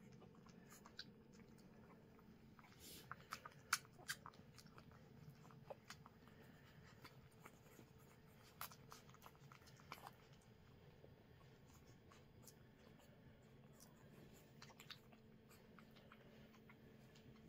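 Near silence with faint scattered wet clicks and smacks, a few sharper ones around four seconds in and again about ten seconds in: newborn whippet puppies suckling at their mother.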